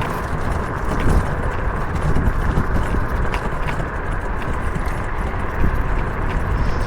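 Wind rushing over the microphone and tyre-on-road noise from a bike descending at speed, with scattered light clicks.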